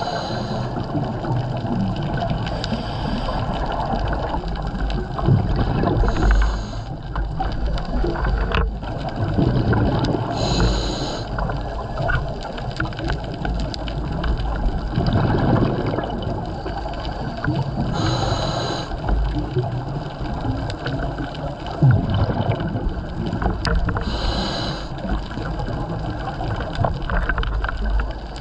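Scuba diver breathing through a regulator, heard underwater: a short hiss of inhalation every few seconds, with the bubbling rumble of exhaled air between breaths.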